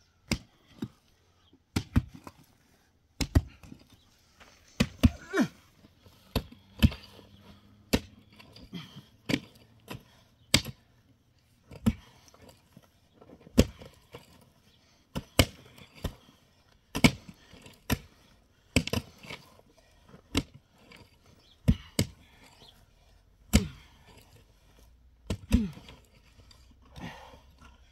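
Repeated sharp blows of a hand tool striking, irregular, roughly one a second, some harder than others.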